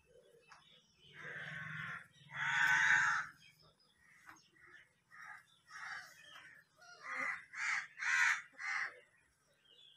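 Crows cawing: two longer harsh caws in the first few seconds, then a run of shorter caws about two a second near the end.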